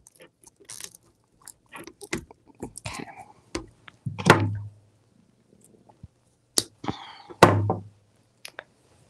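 Zip tie clicking as it is drawn tight through plastic canvas, among small clicks and rustling of poly burlap mesh being handled, with two louder dull knocks around the middle and near the end.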